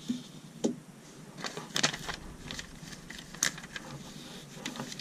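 Plastic Lego pieces clicking and tapping as they are handled and pressed onto the model car: a scattered series of short sharp clicks, loudest about two and three and a half seconds in.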